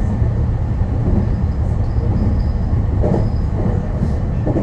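Meitetsu electric train running along the line, a steady low rumble of wheels on rails heard from inside the front of the train, with a couple of short knocks in the second half.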